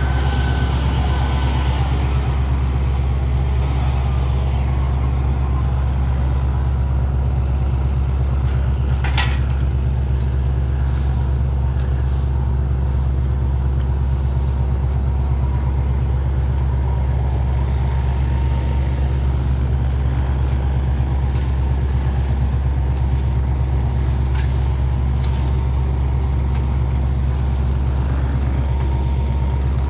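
Heavy engine running steadily at a constant speed, a deep unchanging drone, with a brief click about nine seconds in.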